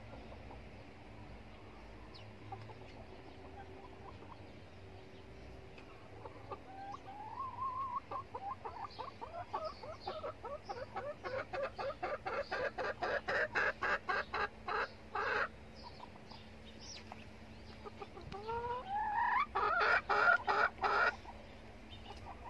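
Hen clucking in fast repeated runs of about four calls a second, each run rising in pitch and getting louder: a quiet start, a long run, a pause, then a second run near the end. A hen fussing beside a nest spot that another hen is laying in.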